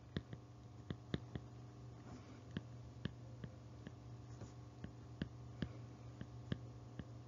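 A stylus tapping and writing on a tablet screen: a dozen or so sharp, irregular taps as the words are handwritten, over a steady low hum.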